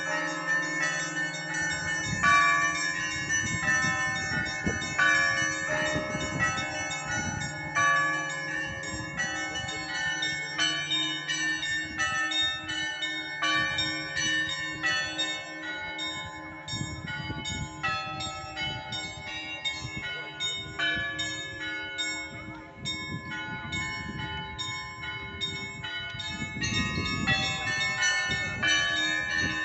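Russian Orthodox cathedral bells rung by hand. The small bells are struck in a quick, continuous pattern over the steady hum of the larger bells.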